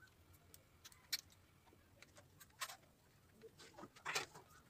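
A few faint, sharp metallic clicks and small rattles from a screw and wire ring terminal being fitted by hand onto a motorcycle battery terminal. The loudest clicks come about a second in, midway, and near the end.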